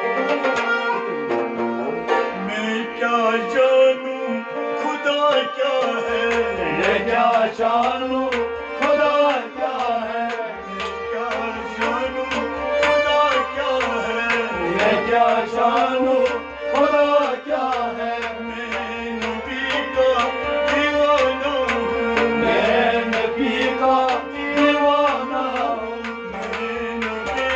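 Kashmiri folk song: male voices singing over a harmonium's steady held notes, a bowed sarangi and a hand drum keeping a steady beat.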